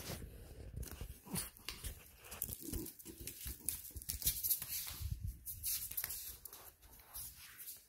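French bulldog handling and chewing a wooden ruler: irregular clicks, knocks and scraping.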